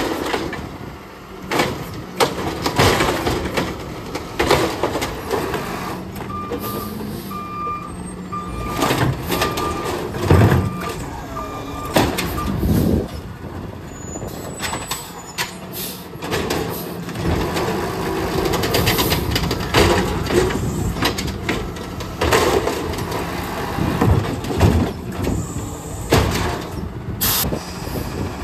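Automated side-loader garbage truck working its lifting arm: the diesel engine running under repeated bangs and clatters of plastic carts being gripped, lifted and dropped, with hisses of air. A steady row of warning beeps, about one and a half a second, sounds for several seconds in the first half.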